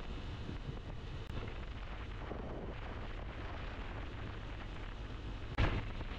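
Riding wind buffeting the microphone as a steady low rumble, mixed with the running and road noise of a Honda SP 125 motorcycle cruising at speed. A short louder thump comes near the end.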